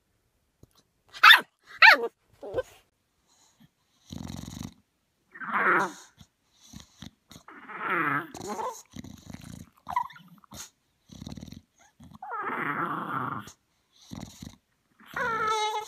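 Puppy giving two sharp high yelps, then an English bulldog making a series of low, drawn-out vocal sounds with breathy, snuffling noises between them. Near the end comes a longer whine that rises and falls in pitch.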